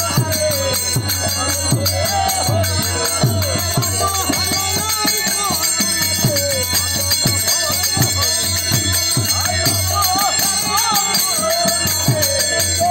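Bengali kirtan music: a harmonium holding the melody with a male voice singing over it, frequent strokes on a khol barrel drum, and the steady metallic ringing of small hand cymbals.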